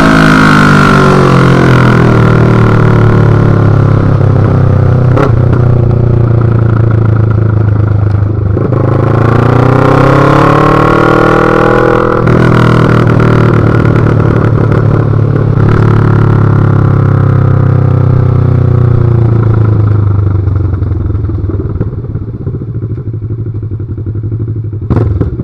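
Kawasaki ER-6f (Ninja 650R) parallel-twin engine running loud with its silencer removed, heard from on the bike. The engine note drops off, rises sharply under acceleration about nine seconds in, and holds steady. Near the end it dies down to a quieter low running as the bike slows, and a single sharp knock follows.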